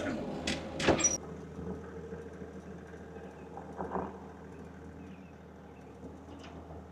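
Small backhoe's engine running steadily at idle, with a few sharp knocks about a second in and again around four seconds.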